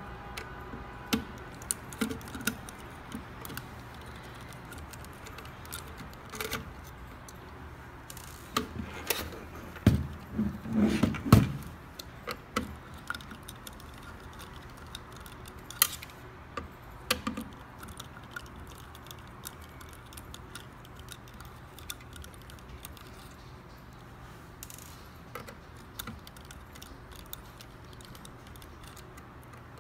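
A screwdriver working screws out of a car stereo head unit's sheet-metal case, making scattered small metallic clicks and ticks. A louder run of clattering knocks comes about ten seconds in.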